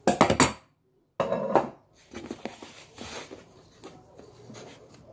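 Handling noise from cutting croissant dough with a pizza cutter and a ruler on a wooden pastry board: two loud bursts of knocking and scraping in the first two seconds, then softer taps and rustling as the cut dough is pulled apart.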